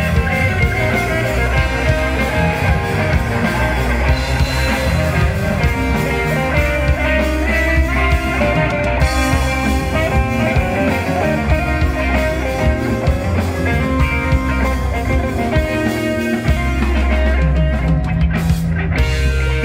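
Live rock band playing loudly, led by electric guitar over a drum kit.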